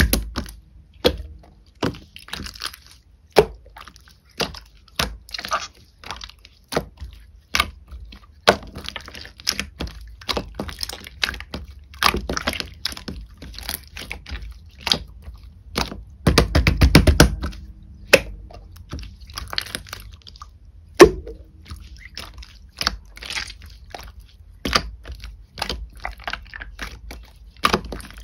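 Pearl slime being pressed and squeezed by hand, giving many sharp clicking pops of trapped air between short squishes, with a longer, louder squish about two-thirds of the way through.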